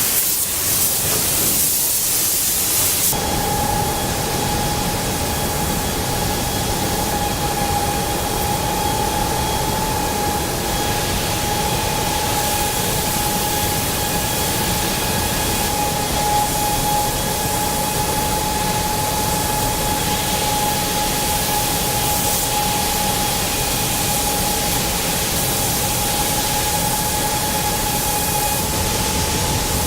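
Car-factory machinery: a steady hiss of noise, joined about three seconds in by a constant high whine that holds steady.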